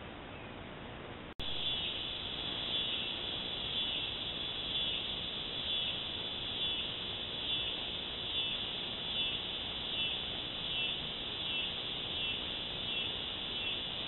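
A high, rhythmic insect chorus, swelling and fading a little faster than once a second over steady microphone hiss. It begins abruptly after a brief dropout about a second and a half in; before that there is only the hiss.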